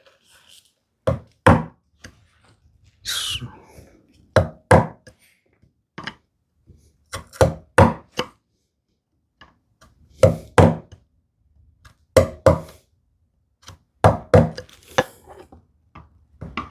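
A chisel being struck into wood to chop the edges of a groove, the blows coming in groups of two or three every two to three seconds, with a short scrape about three seconds in.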